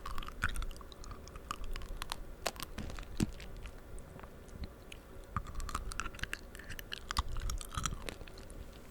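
Close-miked chewing of tanghulu, fruit coated in a hardened sugar-candy shell: irregular crisp crunches and crackles of the candy shell breaking between the teeth, mixed with moist chewing.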